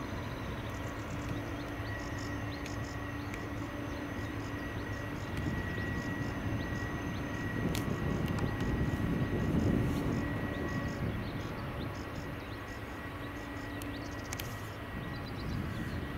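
Airliner engines running as the aircraft passes: a steady hum with a high whine over it, the rushing engine noise swelling to its loudest about ten seconds in, then easing off.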